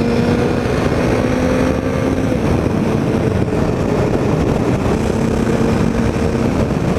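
Motorcycle engine running at a steady pitch under heavy wind rush on a helmet-mounted camera's microphone while riding.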